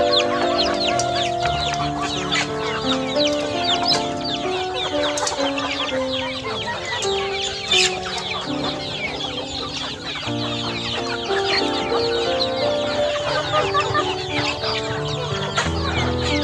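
A flock of chickens clucking while feeding, with many quick, high cheeps from chicks throughout, over background music of held notes.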